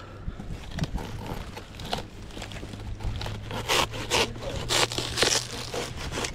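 Dry, fibrous coconut palm frond bases scraping, crackling and tearing as gloved hands pull and work at them in the crown of the palm, with a run of sharper scrapes from about three seconds in.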